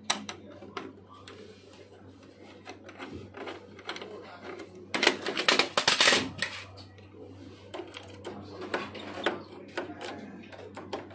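Plastic and metal clicks, knocks and rattles as a projector's lamp module and its housing are handled and worked with a tool, with a louder run of knocks about five seconds in.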